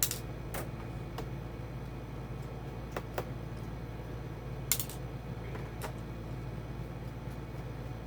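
Scattered sharp clicks and taps, about eight of them at irregular intervals, from handling a laptop and small tools while its case is being opened, over a steady low hum.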